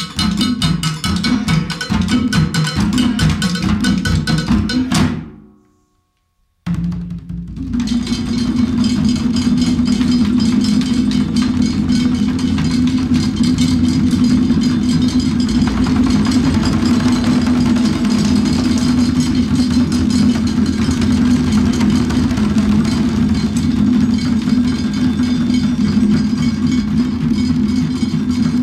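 Afro-Haitian drum ensemble playing a dense rhythm: a large barrel drum and other hand drums with stick and metal percussion. The playing fades out about five seconds in, drops to silence for about a second, then resumes and continues steadily.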